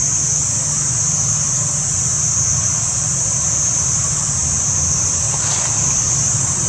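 Steady high-pitched drone of insects, over a low steady rumble, with a few faint crackles near the end.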